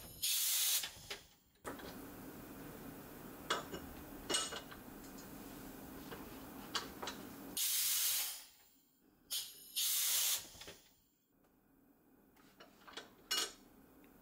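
Pneumatic shoe sole press working: sharp bursts of compressed air hiss as its valve opens and vents, near the start and twice more later on. In between there is a steadier hiss with a low hum while the membrane pad holds the sole under pressure, with a few sharp clicks.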